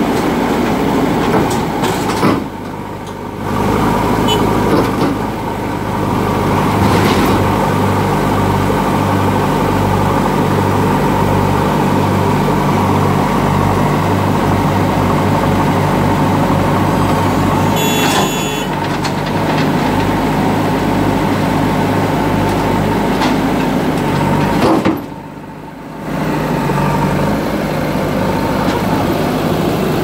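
Diesel engines of JCB 3DX backhoe loaders running steadily at close range, with a low throbbing beat. The sound drops briefly twice, near the start and near the end.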